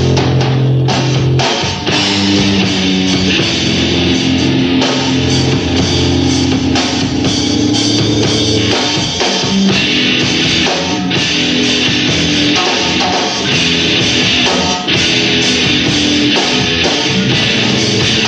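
A rock band playing live with no vocals: electric guitars, bass and a drum kit in a loud, dense heavy-rock passage.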